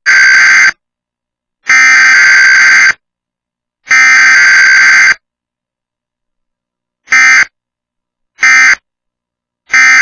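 Emergency Alert System SAME header for a Required Weekly Test: three digital data bursts of about a second each, about a second apart. These are followed by three short bursts, the end-of-message code.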